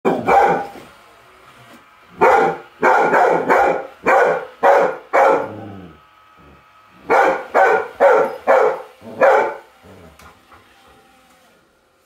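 Dog barking at a robot vacuum cleaner, in two quick runs of sharp barks with a short pause between, then falling quiet near the end.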